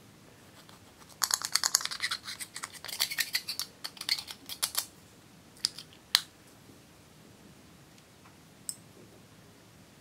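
A thin metal tool scraping pressed eyeshadow powder out of its compact pan: a rapid run of scratchy clicks lasting a few seconds, followed by a few single clicks.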